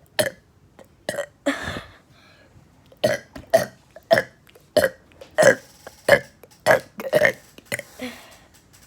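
A person burping deliberately over and over, about a dozen short burps. From about three seconds in they come in a steady run, one roughly every half second.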